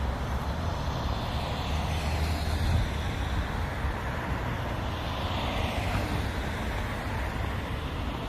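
Road traffic: a steady rumble of idling and passing vehicles, with a low engine drone that fades about three seconds in.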